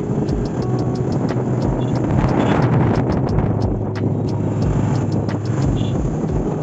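A vehicle running steadily with a low hum, wind buffeting the microphone, and many short clicks or rattles throughout.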